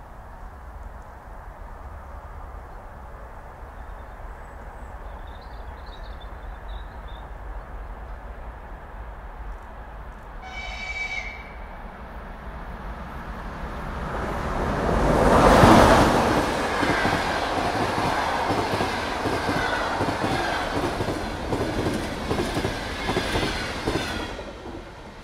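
An EP2K electric passenger locomotive and its train approach with a low rumble. The locomotive gives one short, high-pitched horn blast about ten seconds in. About fifteen seconds in comes the loudest rush as the locomotive goes past, followed by the rhythmic clatter of the passenger carriages' wheels on the rails, which drops away just before the end.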